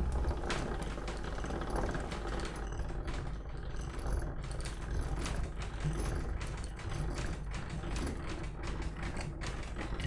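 Hand-cranked Thorne IC three-frame tangential honey extractor spinning its frame cage, the gearing whirring with a fast, even run of fine clicks as honey is flung from the comb.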